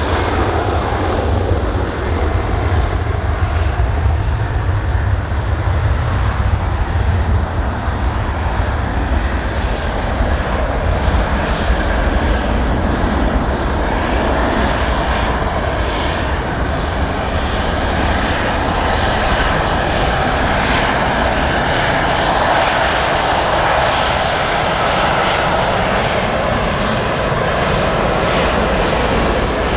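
Delta Boeing 767-300's twin jet engines at takeoff thrust: a loud, steady rumble.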